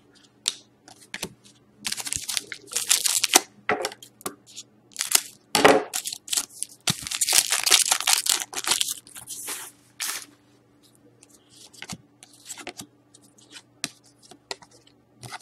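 Silvery foil wrapper of a 2013-14 Titanium hockey card pack being torn open and crinkled in a series of rustling bursts over the first ten seconds. Then come lighter flicks and clicks of the cards being handled.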